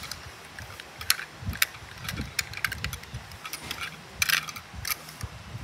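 Small toy cars being handled and knocked against each other: irregular clicks and clacks, with soft bumps against a fabric surface. The clicks are busiest a little past four seconds in.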